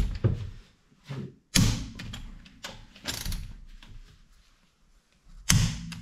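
Click-type torque wrench on car wheel bolts, being tightened in turn to 90 Nm: ratcheting with several sharp clicks and knocks, the loudest about a second and a half in and near the end, as each bolt reaches its set torque.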